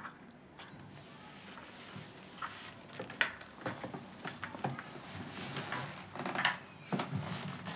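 Rustling of clothes and seats with a few light knocks and clicks as people move about and get up from their seats.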